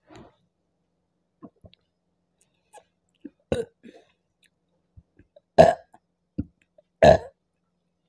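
A woman burping repeatedly from the gas of a fizzy apple drink. A few small burps come first, then a louder one about three and a half seconds in, and the two loudest about a second and a half apart near the end.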